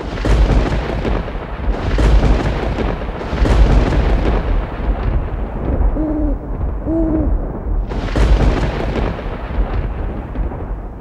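Rolling thunder with several loud surges, and an owl hooting twice, about six and seven seconds in.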